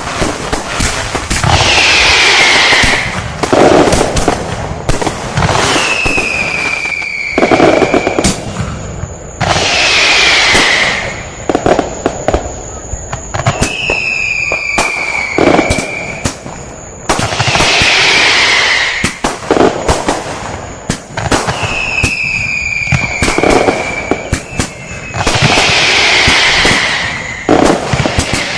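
Fireworks and firecrackers: a steady crackle of small pops under a repeating pattern of whistling fireworks. Each is a hissing rush followed by a falling whistle, coming in evenly spaced pairs about every eight seconds.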